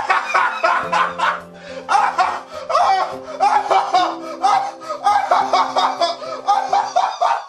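A man laughing in repeated short bursts over background music with long held low notes.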